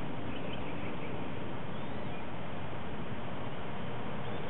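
Steady outdoor background hiss and low rumble, with a few faint, high, short chirps of birds scattered through it.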